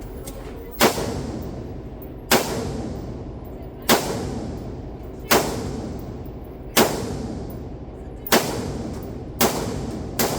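Gunshots in steady slow fire, seven of them, about one every one and a half seconds. Each crack is followed by a long echoing decay.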